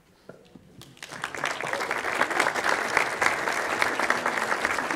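Audience applauding: a hall full of people clapping, breaking out about a second in after a brief quiet.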